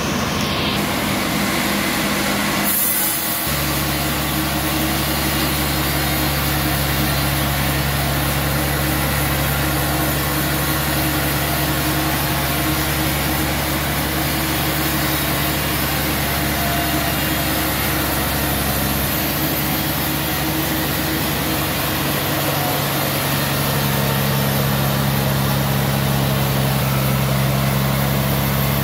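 Band sawmill machinery running with a steady, even hum. The sound changes abruptly about three seconds in.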